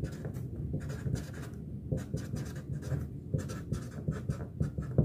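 Felt-tip marker writing on paper: a run of short, irregular scratching strokes as letters are written.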